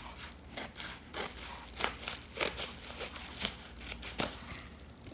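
Plastic mailing package being handled and opened by hand: a dozen or so short crinkles and rustles at uneven intervals.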